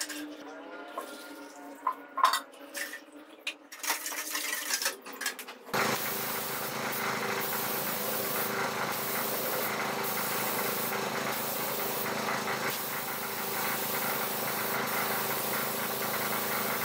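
A metal stirring rod scraping and clinking in a can while sanding sealer is mixed with lacquer thinner. About six seconds in, a steady hiss of compressed air starts from a gravity-feed spray gun spraying sanding sealer, with a steady hum underneath.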